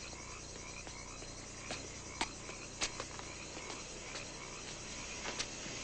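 Faint, steady chirping of insects, with a few short sharp clicks scattered through it.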